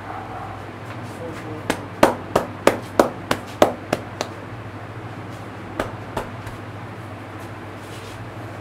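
A barber's hands striking a head in percussive head massage: a quick run of about nine sharp slaps, some three a second, then two softer ones a couple of seconds later. A steady low hum underneath.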